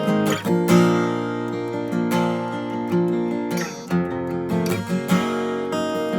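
Martin D-28 dreadnought acoustic guitar being strummed, with several chords ringing out in turn. It has D'Addario EXP 13-gauge strings tuned down a half step to E flat.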